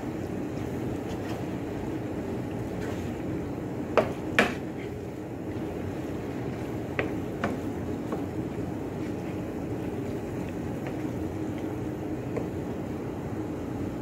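Wooden spatula stirring penne and meat sauce in a metal pan, over a steady low background noise. It knocks sharply against the pan twice about four seconds in, and more lightly twice around seven seconds.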